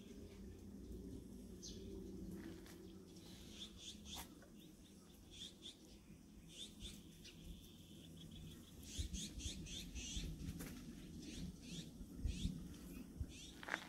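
Small birds chirping over and over, busier in the second half, with light crunching steps on gravel near the end.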